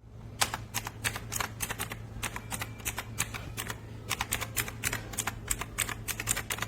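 Typing on the AULA F2088 mechanical keyboard's blue switches: a steady run of sharp clicks, several keystrokes a second, over a faint low hum.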